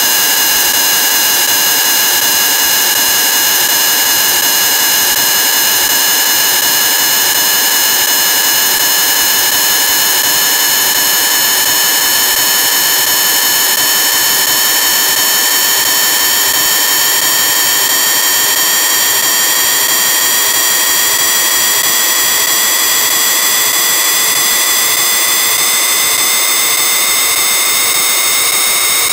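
Loud, harsh, digitally distorted effects audio: a shrill electronic whine made of several stacked tones over a steady hiss, its pitch creeping slowly upward.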